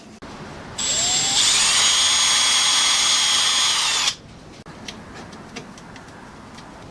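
A handheld power tool's small electric motor spins up with a quickly rising whine and runs at a high, steady pitch for about three seconds, then cuts off abruptly.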